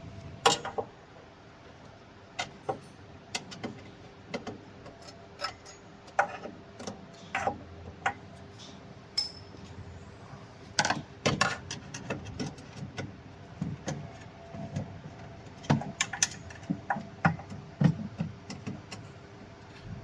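Irregular clicks, taps and light metallic clinks from hands and tools working on a laser machine's parts during a power-supply swap, over a faint steady hum.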